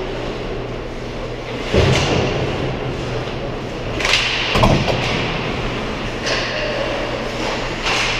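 Ice hockey play close up: skate blades scraping the ice and sticks and puck knocking, with heavier thuds about two seconds and four and a half seconds in.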